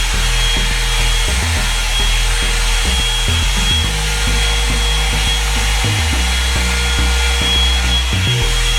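Revlon 2-in-1 hot-air dryer and styler brush running steadily on high heat: a continuous blowing rush with a thin, high fan whine.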